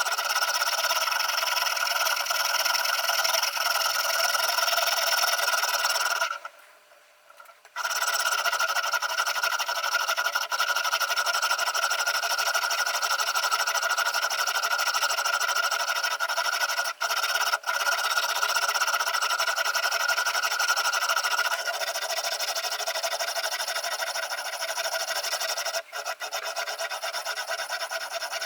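Diamond sharpening stone of a guided knife sharpener rubbing along a steel chef-knife edge: a continuous dry scraping, broken once for about a second a little over six seconds in.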